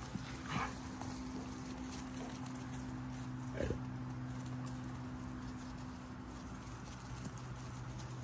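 XL pitbull and puppies playing on grass: two short sounds from the dogs, one about half a second in and a louder one near the middle, over a steady low hum.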